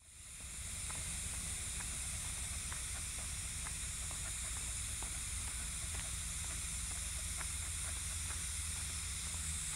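Steady high-pitched drone of an insect chorus, with a low rumble on the microphone and faint irregular ticks throughout.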